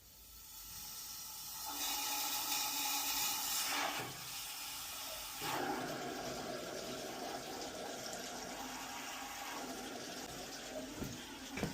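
Water rushing out of an isolated hot-water boiler as it is drained to relieve its pressure. The flow builds over the first couple of seconds, is loudest for a moment, then settles into a steady rush.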